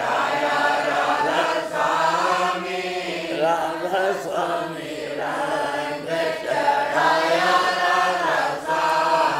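Voices chanting a Radhasoami devotional hymn in a repeating sung refrain, over a steady low drone.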